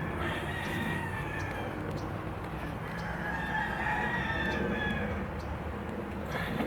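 Roosters crowing in long drawn-out calls that overlap, the longest from about two and a half to five seconds in, over a steady low hum.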